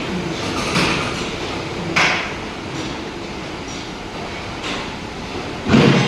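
Hammer blows on the metal of a mixer gearbox to drive out a stuck bearing: three separate strikes, the loudest near the end, over a steady rumbling noise.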